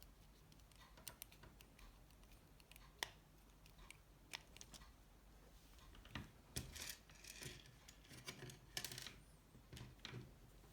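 Faint, scattered small clicks and ticks, then a stretch of scraping and rustling about six seconds in: tiny screws and plastic phone parts being handled and driven with a precision screwdriver during reassembly.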